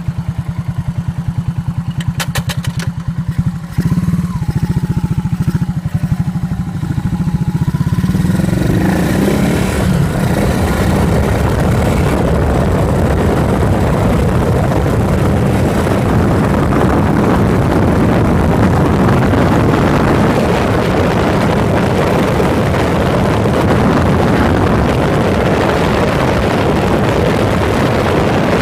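Yamaha SRX400's air-cooled single-cylinder engine heard close up, first running at a slow, even thump, with a short run of clicks about two seconds in. From about eight seconds in the engine note and wind noise swell into the steady, dense sound of the bike under way.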